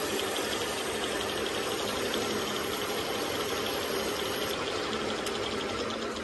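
Steady mechanical running of workshop machinery, most likely the lathe's motor and gear train, an even hum with a rattle.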